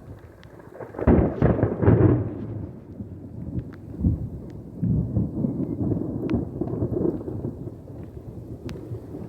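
Thunder: a sudden loud clap about a second in, then long rolling rumbles that swell again several times before fading.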